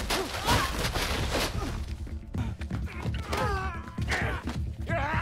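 Film fight-scene soundtrack: heavy punches and thuds, with men grunting and crying out, over background music.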